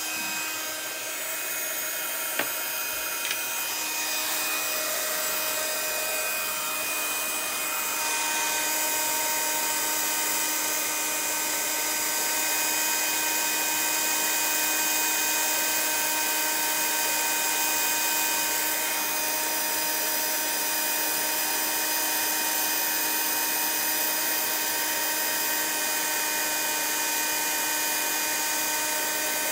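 Craft heat embossing gun running steadily: its fan blows with a steady motor whine as it heats and melts embossing powder.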